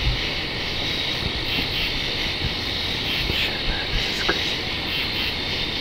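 Night insects chirping in short pulses that repeat every half second or so, over a steady background hiss.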